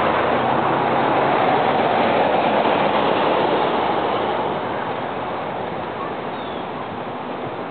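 Road traffic passing close by: a steady rush of tyre noise on asphalt that eases off after about four and a half seconds as the vehicle moves away.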